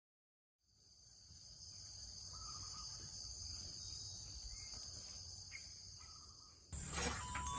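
A steady high insect chorus fades in after a moment of silence, with a low rumble of outdoor ambience and a couple of short chirps. Near the end a louder sound cuts in.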